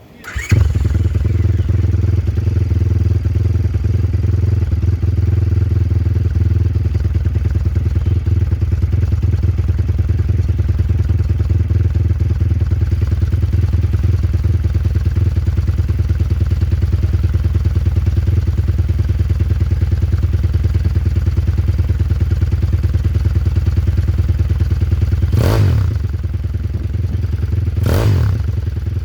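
Daytona engine on a Venom X22 minibike catching and running steadily through a cut-down, wrapped exhaust canister, with two short revs near the end.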